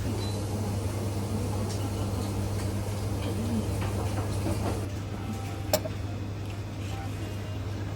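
Steady low hum under a faint background murmur, with a few light clicks and one sharper click a little under six seconds in.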